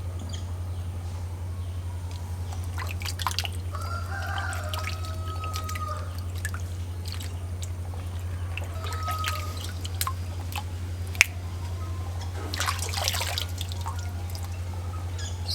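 Water splashing and dripping, as in washing at a sink, with scattered clinks and knocks and one sharp knock about two-thirds of the way through. A steady low hum runs underneath.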